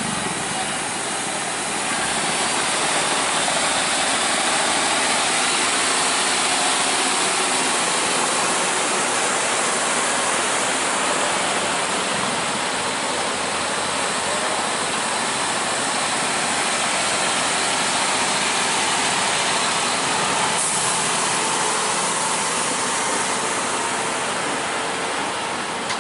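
MAN TGS 40.440 heavy truck hauling a lowbed trailer loaded with a crawler crane, moving slowly past close by. Its diesel engine runs steadily under the heavy load, making an even, broad noise.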